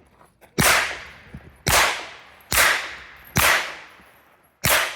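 Five pistol shots, fired about a second apart, each sharp crack trailing off in a long echo.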